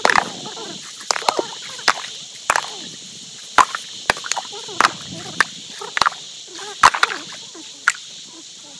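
Sharp, hard strikes, irregular at about one or two a second, over a steady high drone of insects.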